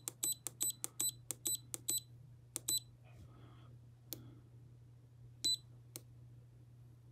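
FNIRSI HS-02 smart soldering irons beeping at each button press: a quick run of short, high beeps, about four a second, as the standby time is stepped, then a pair of beeps and a few single ones, over a faint low hum.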